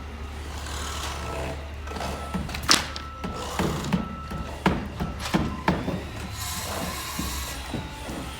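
Irregular knocks and thuds, several in quick succession in the middle of the stretch, over a steady low hum.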